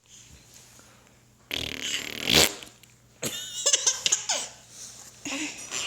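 A fart sound that swells to a loud end about two and a half seconds in, followed by a burst of laughter at it.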